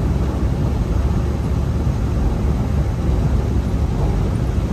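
Steady low rumble of a semi-truck, heard from inside its cab.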